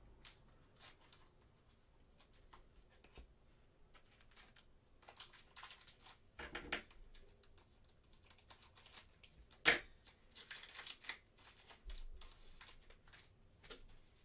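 Gloved hands tearing open a trading-card pack wrapper and handling the cards: soft rustling, crinkling and small clicks, with one louder crackle about ten seconds in.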